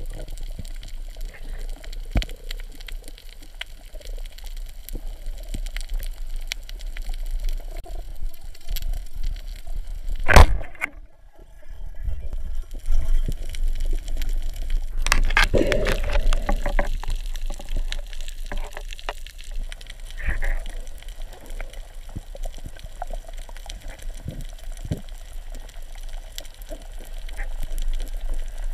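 Underwater sound through a camera housing: a steady low water rush with faint scattered clicks. About ten seconds in comes one sharp, loud crack, a speargun firing at a fish, followed by a second of near silence and then a few seconds of louder rattling.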